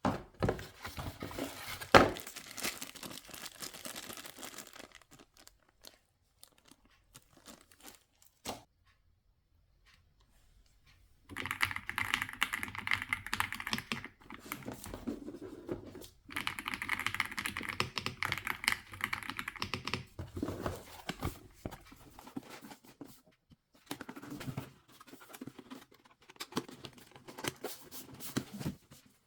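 Keys of an Aula F99 mechanical keyboard typed on in rapid bursts of clicking, with pauses between the bursts and one sharper, louder click about two seconds in.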